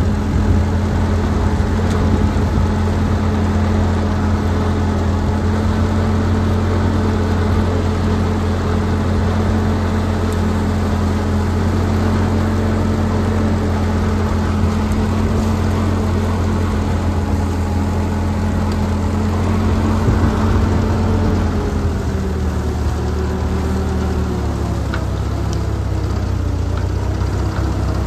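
Old farm tractor engine running steadily under a light throttle, its pitch dropping slightly about three-quarters of the way through.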